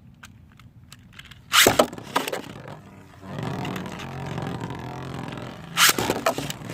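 Beyblade tops ripped from their launchers into a plastic stadium about a second and a half in, then spinning and scraping around the bowl with a steady rattling whir. A sharp loud clash comes near the end.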